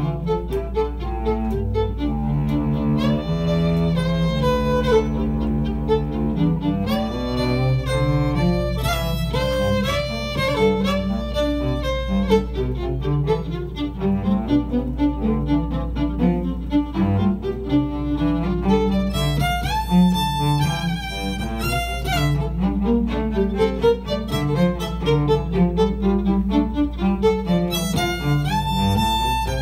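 Fiddle and cello playing an instrumental passage together live, the fiddle carrying a quick, sliding melody over the cello's lower line, with a steady low hum underneath.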